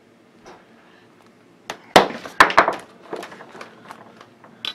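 Multimeter probe leads and meter being handled on a worktable: a cluster of sharp clicks and knocks about two seconds in, then lighter scattered taps. No continuity beep sounds.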